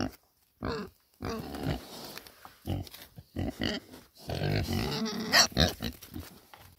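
Domestic pigs grunting in short, irregular bursts while they feed, with one louder, sharper cry about five and a half seconds in.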